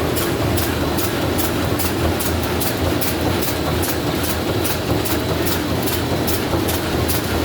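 Side sealing bag-making machine with an online folder running 51-micron BOPP film: a steady mechanical run with a regular beat of about four to five strokes a second.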